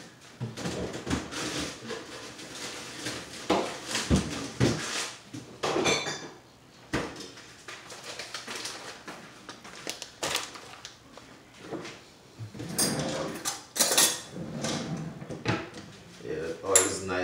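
Kitchen clatter: dishes, a frying pan and cutlery being handled, with irregular knocks and clinks that come thickest near the end.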